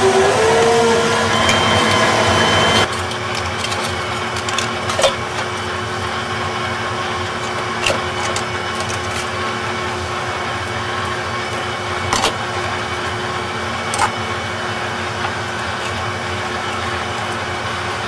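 Steady machinery hum of a research vessel, heard in its wet lab. For the first three seconds a louder machine whine runs, stepping up in pitch about half a second in, then cuts off. A lower steady hum follows, with a few sharp clicks and taps from sieve and glassware being handled.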